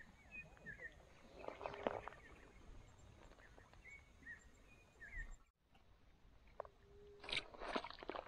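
Faint outdoor ambience by the water: a bird gives short, descending chirps in two brief runs, about half a second in and again around four seconds in. Between them come scattered rustles and clicks from a small fish being unhooked by hand among reeds, and a cluster of sharper rustling noises near the end as it is let go into the water.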